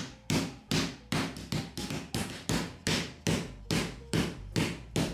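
Chicken thighs under plastic wrap being pounded flat with a stick on a wooden cutting board: a steady run of sharp thuds, about three a second, easing slightly toward the end.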